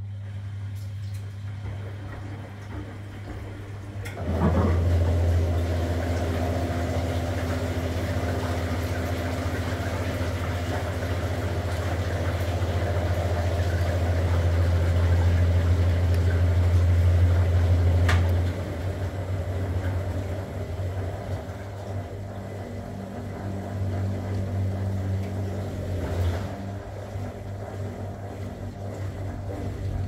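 1962 Constructa K4 washing machine running a wash cycle: its motor hums steadily as the drum turns and the wet laundry and water churn inside. The hum grows louder about four seconds in and drops back with a click about two-thirds of the way through.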